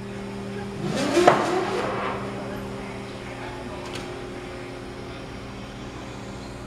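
Ferry's engines running with a steady drone of several low tones. About a second in, a louder burst of clattering noise peaks in a sharp knock.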